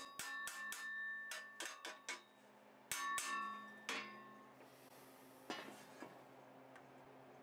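A small hammer tapping quickly on steel lock parts, about three light blows a second, each with a short metallic ring. The tapping breaks off about two seconds in, comes back for a few blows around three seconds, and ends with a softer knock.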